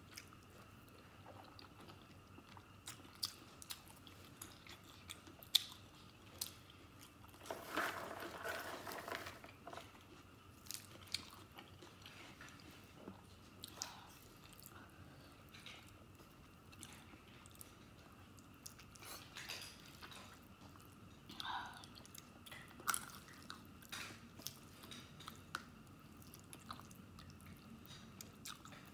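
Close-miked mouth sounds of eating stewed fatty pork and noodles: soft chewing with scattered small wet clicks, and a louder, noisier stretch of about two seconds some eight seconds in.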